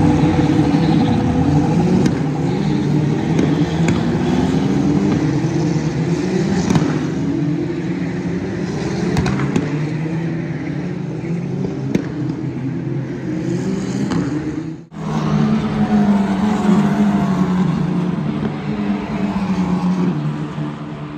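Formula 4 race car engines on track, revving high and climbing in pitch through the gears again and again. The sound drops out briefly about fifteen seconds in.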